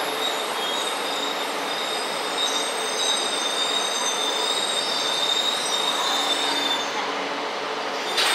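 JR East E4 series double-deck Shinkansen, two sets coupled, creeping into the platform and braking to a stop, with a steady high-pitched squeal over the rolling rumble. A sharp click comes near the end as the train halts.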